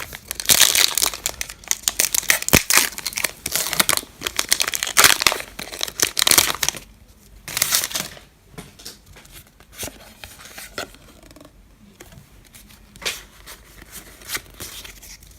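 Foil Pokémon booster-pack wrapper crinkling and tearing as it is opened, with dense crackling for about seven seconds. After that, quieter rustling and soft clicks as the cards are handled.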